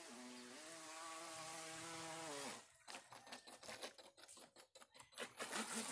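Feilun FT009 RC speed boat's brushless electric motor whining at speed. Its pitch steps up about half a second in, and the whine stops abruptly about two and a half seconds in. It is followed by a choppy, sputtering hiss of spray from the hull and propeller in rapid irregular pulses, loudest near the end.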